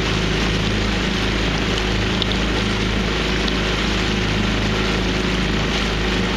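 Outboard motor of a coaching launch running steadily at cruising speed, a constant low hum with wind and water noise over it.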